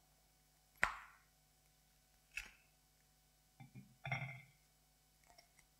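Communion flatbread being broken by hand, with pieces laid on a small metal plate: a few faint, sharp cracks and light taps, the first one, about a second in, the loudest.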